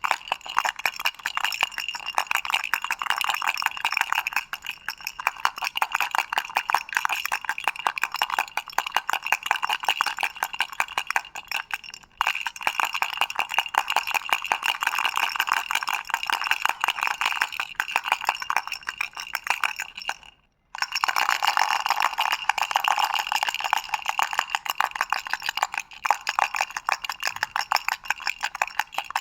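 Doraemon toy rattle shaken continuously, a fast steady clatter with two brief breaks, about twelve seconds in and about twenty seconds in.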